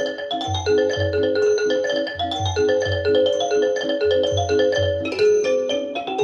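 Music with quick, repeating marimba-like mallet notes over a pulsing low bass, played back through Wilson Audio WATT/Puppy 7 loudspeakers.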